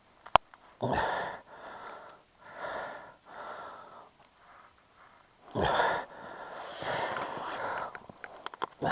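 Footsteps crunching on snow over ice in a run of short, uneven steps, a couple of them heavier thuds, preceded by a single sharp click.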